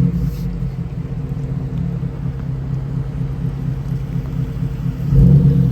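Truck engine running steadily, with a brief rise in level a little past five seconds in.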